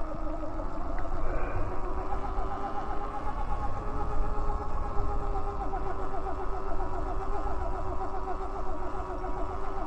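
Electric bike motor whining under way, its pitch climbing slightly over the first couple of seconds and then holding steady, over the low rumble of tyres on a dirt road and wind on the microphone.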